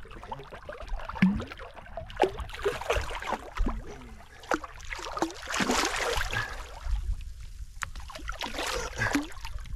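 Water lapping and gurgling against the hull of a small drifting boat, with scattered small knocks and splashes; the water swells louder about halfway through.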